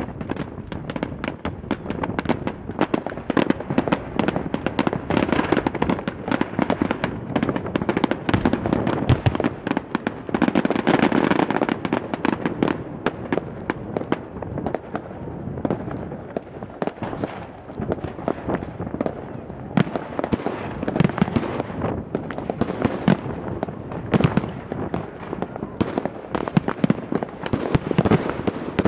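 Aerial fireworks display: shells bursting in a rapid, continuous barrage of bangs and crackles, many per second.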